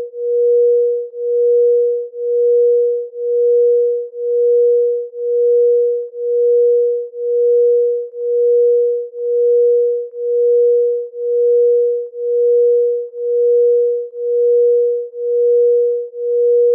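A pure electronic sine tone held at one pitch, swelling and fading evenly about once a second. It is a chakra-tuning tone for energy balancing.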